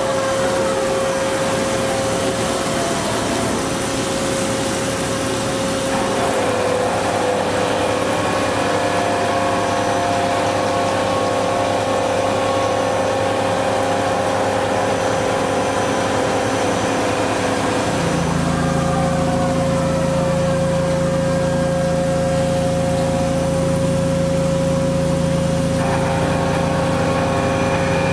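SNK RB200F 5-axis machining centre milling an impeller: a steady, high spindle whine with a hiss of cutting and coolant spray. The tones shift as the toolpath changes, most clearly around 6 s and at about 18 s, where a lower hum joins in.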